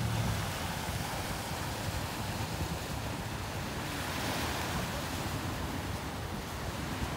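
Steady rush of wind and sea water, with wind buffeting the microphone as a low, fluttering rumble.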